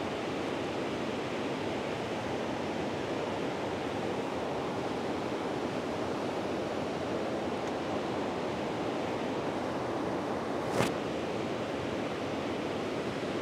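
Steady rush of flowing river water, an even noise with no pitch, and one short click about eleven seconds in.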